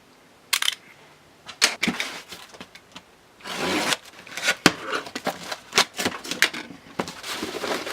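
Scattered clicks and knocks with a short stretch of rubbing or rustling, as a large power converter is handled and set up. The knocks come more often in the second half.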